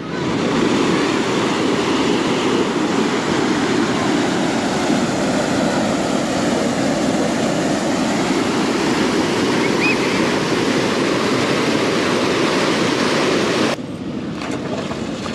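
Water rushing through a raised canal sluice gate in a steady, loud torrent. It stops abruptly near the end.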